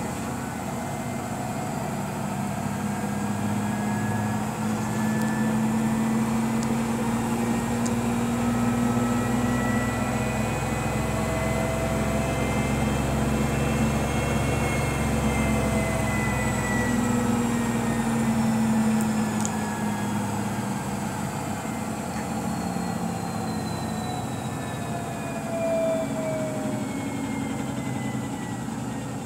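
Samsung Bespoke AI WW11BB704DGW washing machine spinning its empty drum in service mode. The motor and drum whine rises as the drum speeds up from about 930 to 1,380 rpm, peaks about halfway through, then falls as the drum slows to around 660 rpm.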